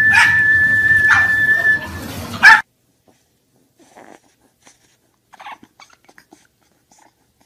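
A dog whining: one long, steady, high whine that holds its pitch for about two seconds. A short loud yelp comes about two and a half seconds in, then the sound cuts off suddenly, leaving only faint small noises.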